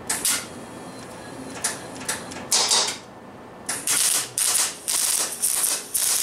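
MIG welder arc crackling in short bursts: a few scattered bursts at first, then about two a second from about four seconds in, as the welding is done in quick stitches. The wire feed is uneven, which the owner puts down to a liner that needs replacing and play in the drive wheels.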